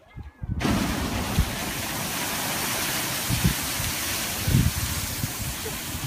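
Geyser erupting: a sudden rush of water and steam starts about half a second in and goes on as a steady loud hiss, with a few low thuds.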